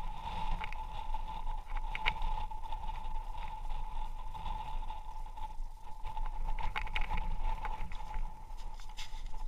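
Wind rumbling on the microphone on open ice, with a steady high-pitched whine and a few light clicks.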